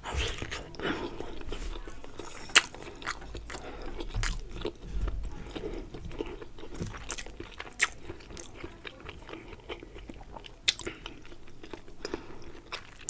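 Close-miked chewing and mouth sounds of a person eating a meal of braised pork, rice and beans, and stewed eggplant: a steady run of irregular wet smacks and clicks, with a few sharper, louder ones.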